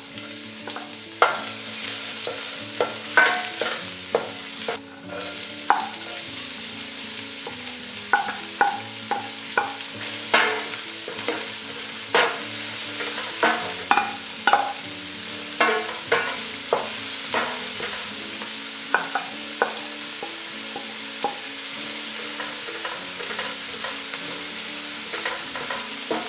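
Chopped garlic, onion, ginger and chili sizzling in hot coconut oil in a stainless steel pan. A wooden spoon knocks and scrapes against the pan at irregular intervals as they are sautéed, most often through the middle.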